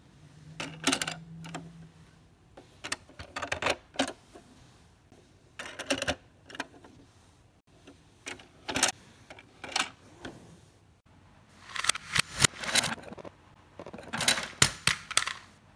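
Plastic doors of a Tayo the Little Bus toy garage being flipped open and shut by hand. They make several quick clusters of sharp plastic clicks and clacks, a second or two apart.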